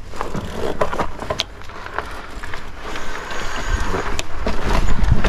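Senada Drifter folding e-bike's 20x4 fat tyres rolling down a rocky dirt trail, crunching over gravel with scattered clicks and rattles from the bike. Wind rumbles on the microphone, heavier near the end.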